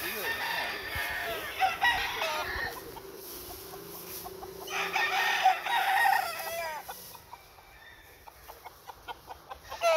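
Gamecock roosters crowing: two long crows, one right at the start and one about five seconds in, then a run of short clucks near the end.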